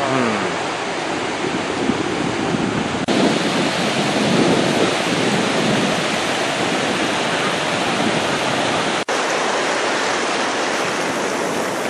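Loud, steady rushing noise of surf and wind on the microphone, cut by two very brief dropouts about 3 and 9 seconds in.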